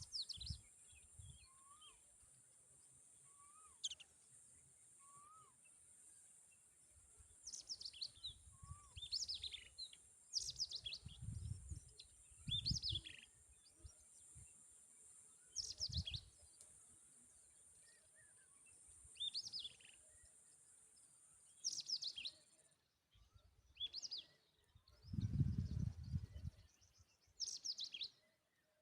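A small bird chirping: short, high, downward-sweeping chirps every second or two, with a few fainter, lower rising notes early on. Low rumbling bumps come now and then, and a steady high hiss stops about three-quarters of the way through.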